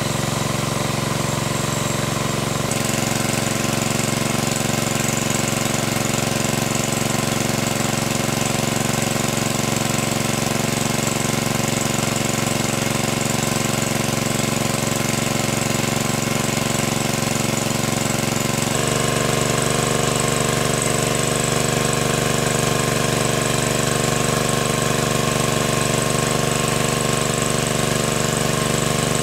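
Portable engine-driven water pump running steadily at a constant speed, with the rush of water from its outlet hose. The engine note shifts abruptly about 3 seconds in and again about 19 seconds in.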